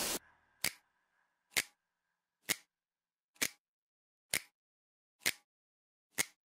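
Clock ticking: seven sharp, even ticks a little under a second apart, with silence between, just after background music cuts off.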